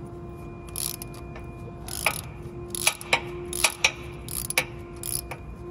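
Ratchet wrench clicking in short, irregular strokes as it turns a 19 mm nut welded onto a broken exhaust manifold bolt, backing the bolt out of the HEMI's aluminium cylinder head.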